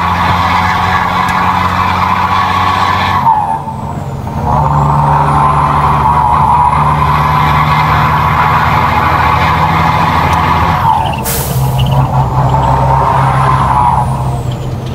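Renault Premium 370 truck's diesel engine running under way, heard from inside the cab; its note drops off for about a second about three seconds in, then picks up again. A short burst of air hiss comes about eleven seconds in.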